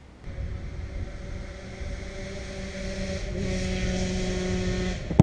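Motorcycle engine running, growing steadily louder, then cut off suddenly by a single sharp crack at the very end.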